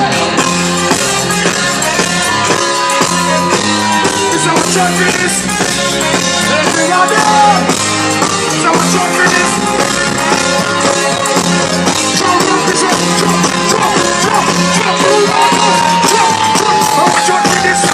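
Live band music playing loud and steady, with long held notes in the melody line.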